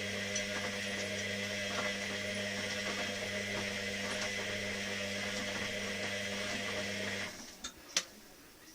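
Washing machine running with a steady motor hum, which stops abruptly about seven seconds in, followed by a single sharp click.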